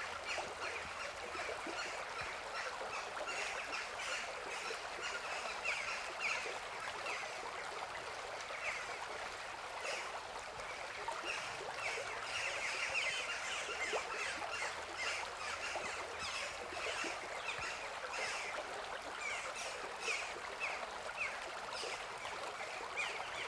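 River water flowing steadily, with birds calling over it in many short, repeated chirps.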